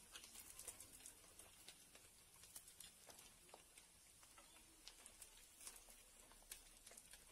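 Eel pieces deep-frying in hot oil in a wok: faint sizzling with many small irregular crackles and pops.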